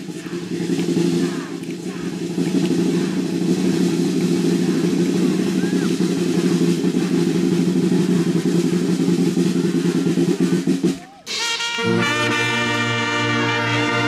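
Brass band playing a low, rumbling passage that breaks off about eleven seconds in, followed by a held brass chord with higher horns above it.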